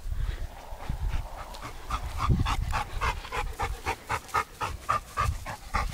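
Black Labrador retriever panting hard and fast, about three to four breaths a second, starting about two seconds in.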